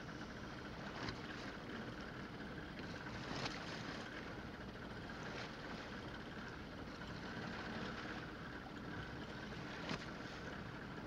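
Steady noise of a boat at sea, wind and water washing over the running hull, with three light knocks.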